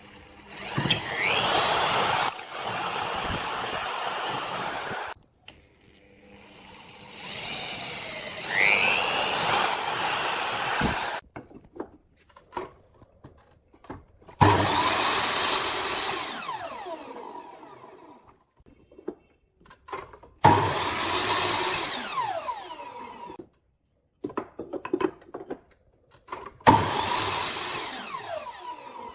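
Electric power tool working wood in five separate runs. Some runs start with a rising whine as the motor spins up, and others trail off with a falling whine as it winds down after release.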